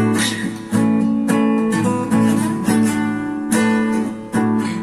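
Acoustic guitar strumming chords, about two strums a second, in an instrumental gap of a song.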